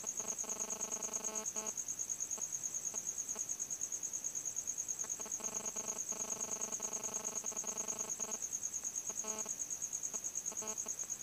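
A cricket's high-pitched trill, rapid even pulses without a break. Fainter steady tones with overtones come and go underneath.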